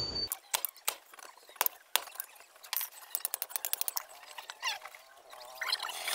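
Irregular light clinks and taps of a hot forged blade and iron tongs being handled on a stone anvil block, opening on the fading ring of a hammer blow just struck.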